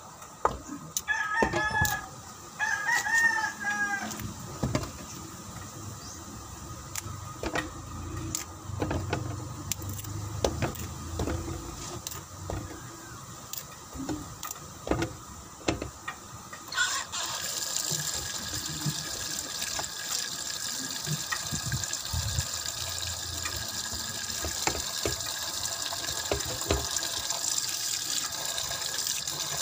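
A rooster crows, in two calls, near the start, over clicks and knocks of saba bananas being pulled apart and handled. About halfway through, a faucet opens and water runs steadily into the sink.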